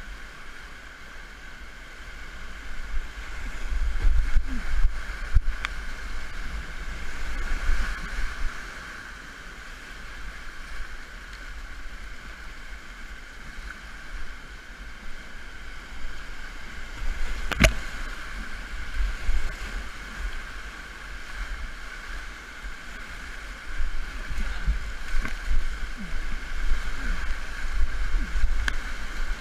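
Whitewater rapids rushing steadily around a kayak, with low rumbling surges as the boat pushes through the waves. One sharp knock comes a little past the middle.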